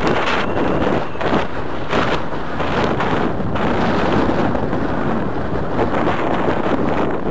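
Wind buffeting the camera's microphone, a loud steady rushing with brief gusts.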